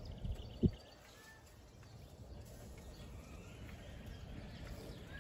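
Faint bird chirps over low wind rumble, with a single sharp knock just over half a second in.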